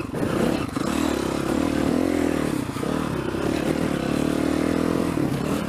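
Yamaha 450 dirt bike's single-cylinder four-stroke engine running under way on a trail at fairly steady revs, its pitch rising a little about two seconds in and easing off again, over a steady hiss of noise.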